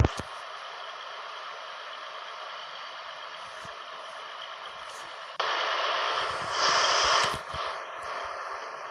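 John Deere 8R tractor running steadily, stepping up in loudness about halfway through and swelling briefly near the end.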